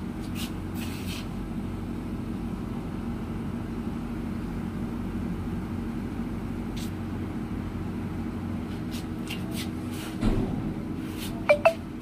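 Steady mechanical hum of running machinery, with a few light clicks, a dull thump about ten seconds in, and two sharp metallic clinks near the end.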